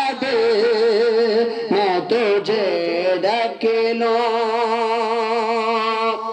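A male reciter's voice chanting melodically into a microphone, with quavering ornaments and glides, then one long held note near the end.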